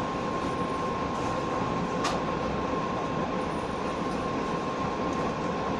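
Interior running noise of a JR West 117 series electric train, a steady rumble with a thin steady whine, and a single sharp clack about two seconds in.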